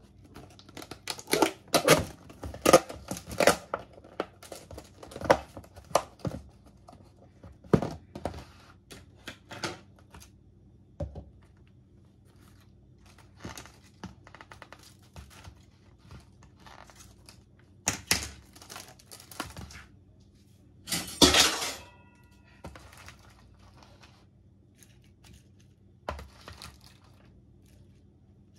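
Clear plastic salad container being handled and opened, with crackling plastic, its paper seal tearing, and clicks and knocks. The loudest crackling burst comes about two-thirds of the way through, with scattered crackles after it as salad is lifted onto a ceramic dish.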